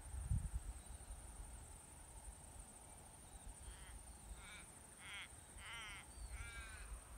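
A crow cawing: a run of harsh calls starting a little past halfway, each call drawn out longer than the last. Low wind rumble on the microphone at the start.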